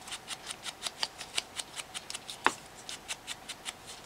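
Quick, even scratchy rubbing strokes, about five a second, as a hand tool is worked over the edges of a pleated cardstock rosette to distress them. One louder tap comes about two and a half seconds in.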